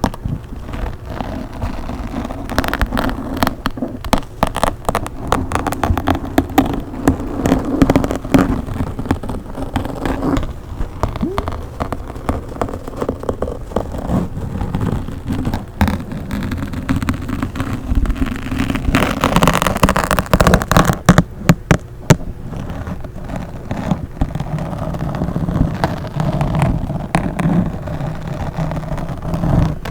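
Fingers scratching and rubbing directly on a microphone, giving dense crackles and pops over a low rumble, with a louder, brighter stretch about two-thirds of the way through.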